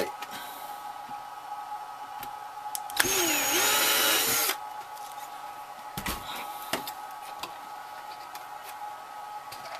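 Ryobi 18-volt cordless drill running for about a second and a half, drilling a 3/32-inch hole through a clear plastic canopy. The motor's whine dips and recovers as the bit cuts. A few light knocks follow as the drill is handled.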